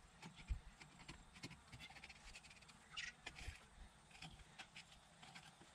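Faint, irregular clicks and crackles of a filleting knife cutting through a King George whiting on a wet stainless steel table.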